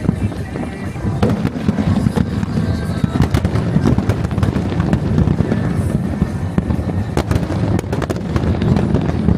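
Fireworks recorded at the launch site: a dense, unbroken barrage of sharp bangs and crackles over a steady low rumble.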